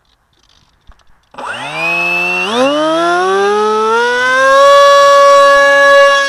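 RC plane's electric motor and propeller spinning up for launch, heard through the plane's onboard camera. About a second and a half in, a loud whine starts and rises in pitch for a few seconds, then holds steady at full throttle.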